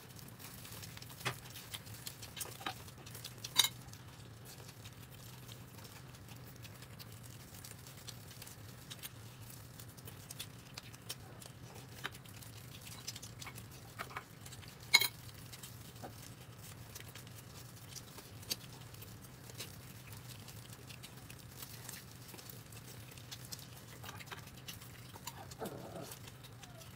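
Eating sounds: quiet chewing and mouth noises with scattered sharp clicks of utensils against dishes, two of them louder knocks about 4 and 15 seconds in, over a steady low hum.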